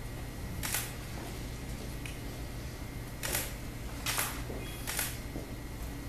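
Camera shutter clicks, like those of a single-lens reflex camera, four in all, spaced irregularly over about four seconds, above a steady low hum.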